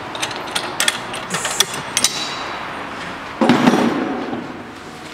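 Sharp metal clinks of a wrench working the regulator fitting on an acetylene cylinder valve. About three and a half seconds in comes one louder, heavier clank that fades over about a second as the steel cylinder is handled.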